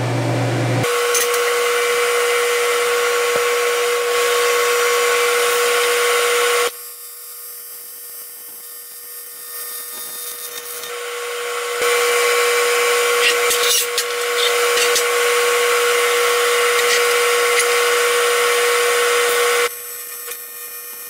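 TIG welding arc on aluminum buzzing steadily, in two long stretches with a quieter spell between them, and a few faint ticks in the second stretch.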